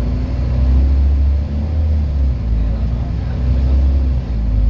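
Scania N230UD double-decker bus under way, heard from inside the passenger cabin: its five-cylinder diesel engine drones steadily and low along with the running noise of the moving bus, the drone dipping briefly twice.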